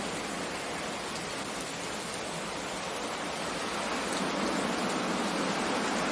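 Steady rain over the sea, an even hiss with surf mixed in, swelling slightly toward the end. No thunder is heard.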